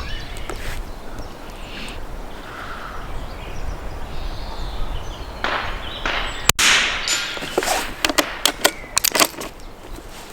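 Sharp metallic clacks and clicks from handling a .22lr bolt-action rifle (Norinco JW25A, a K98 copy) and its magazine while clearing a round stuck in the magazine. One loud clack comes about two-thirds of the way in, followed by a quick run of about six lighter clicks.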